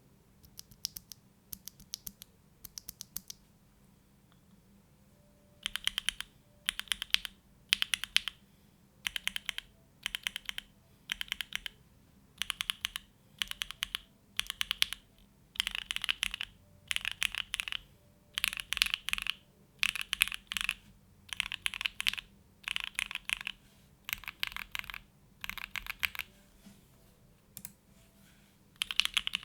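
Typing on a Neo65 plateless mechanical keyboard with hand-lubed Gateron Oil King linear switches and GMK Grand Prix keycaps. A few single keystrokes, a pause of about two seconds, then bursts of fast typing about a second long with short gaps between them.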